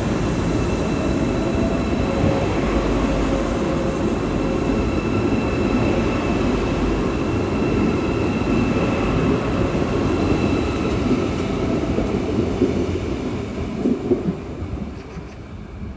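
A train running on the rails: a steady rumble with faint high whining tones over it. It grows quieter over the last few seconds, with a few knocks near the end.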